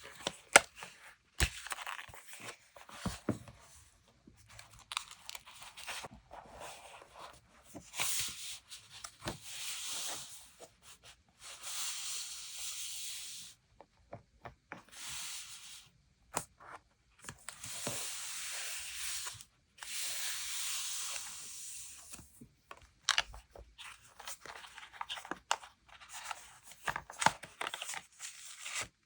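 Paper being torn in long strokes of a second or two, several times over, with crinkling, rustling and small taps of paper being handled in between.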